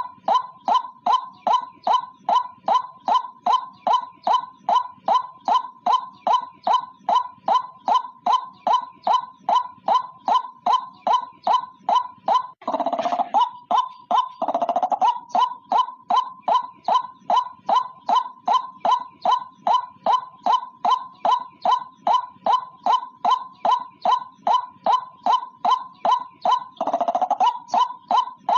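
White-breasted waterhen calling: a long, steady run of loud, repeated notes at about three a second, broken off briefly around the middle before the series starts again.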